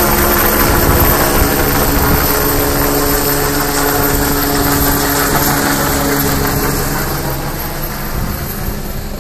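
Helicopter flying low overhead, its rotor and engine running steadily and slowly getting quieter over the last few seconds as it moves away.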